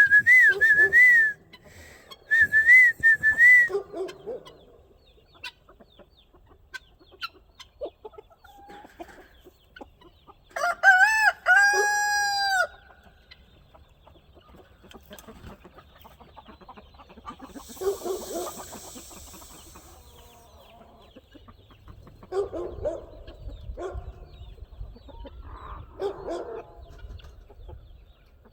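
Chickens clucking around the coop. A rooster crows once, a long arching call, about halfway through. Two high wavering calls come at the start.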